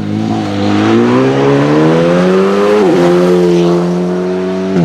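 Alpine A110 R-GT rally car's turbocharged 1.8-litre four-cylinder engine under hard acceleration, its pitch climbing steadily. About three seconds in the revs drop at a gear change, then it pulls on in the next gear.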